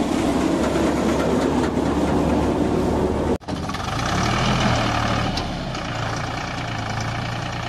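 Paddy thresher drum running with a dense, clattering rush of noise. After a sudden cut about three and a half seconds in, the Deutz-Fahr Agrolux 50 4WD tractor's diesel engine runs steadily with a low hum.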